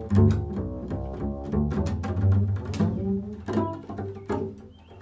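Upright double bass played solo in free improvisation: a busy run of short notes with sharp attacks over ringing low tones.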